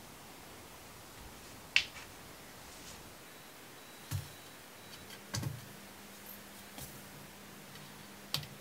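Small sharp clicks from handling small metal flat-pack furniture fittings, one loud click a little under two seconds in and a few fainter clicks and knocks later.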